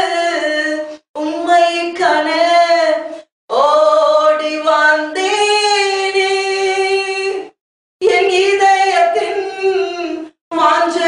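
A woman singing solo and unaccompanied into a microphone. Her phrases are broken by short silent pauses for breath, and there is a long held note in the middle.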